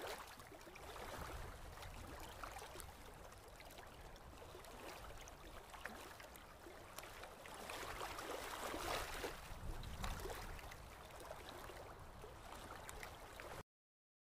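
Faint surf: small waves washing onto a sandy beach, an uneven hiss of water that swells about two thirds of the way through and cuts off suddenly near the end.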